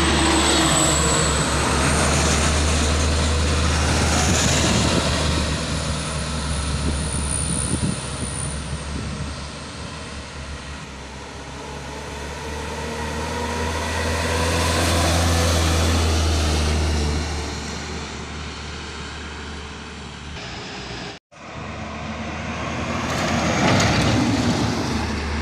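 Diesel truck engines labouring up a steep climb, passing one after another; the drone swells as each truck comes close and fades as it goes, with a brief dropout a little before the end.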